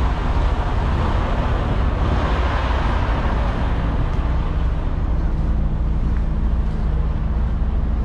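Idling diesel truck engines: a steady low drone, with a rushing noise that swells about two seconds in and fades by the middle.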